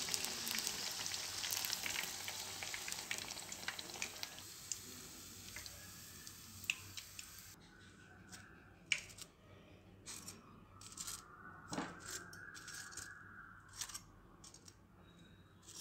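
Breaded fish fingers sizzling in hot deep-frying oil, the hiss fading over the first few seconds as they are lifted out with a wire spider strainer. Later come a series of light clicks and taps from steel tongs and the wire strainer as the fried fish fingers are set into a dish.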